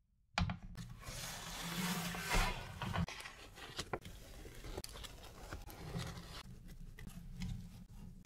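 Baking parchment rustling and crackling as it is handled and peeled away from baked pistachio dacquoise sheets, with small clicks and taps throughout.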